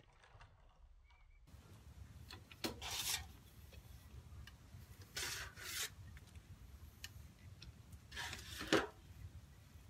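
Manual wheelchair tipping and rolling on concrete, giving a few short scraping rubs of the tyres and frame over a low outdoor rumble.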